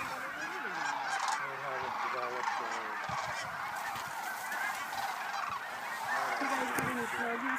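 A huge mixed flock of sandhill cranes and Canada geese calling all at once: a dense, unbroken din of overlapping rattling crane calls and goose honks.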